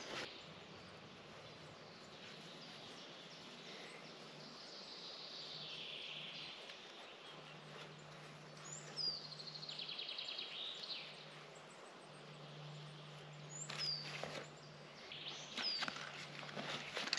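Forest birds calling: short high chirps that slide downward and a rapid trill about ten seconds in, over a faint steady low hum. Near the end come cloth rustling and a few sharp clicks as clothing and a backpack are handled.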